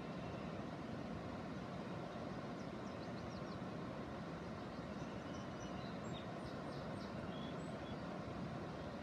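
Steady, even outdoor rushing rumble, with a few faint high chirps in the middle.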